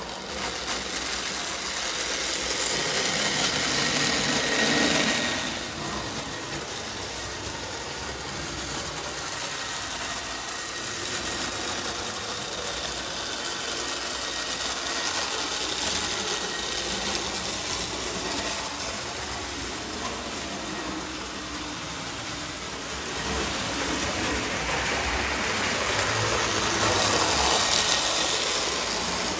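Marx 333 die-cast 4-6-2 Pacific toy steam locomotive running on tubular three-rail track pulling gray passenger coaches: its electric motor and the wheels rolling on the rails in a steady mechanical run. It grows louder twice as the train passes close by.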